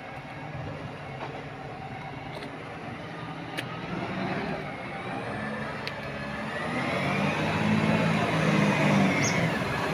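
Garbage truck's diesel engine growing louder as the truck drives closer along the street. A whine rising in pitch comes in over the engine in the last few seconds.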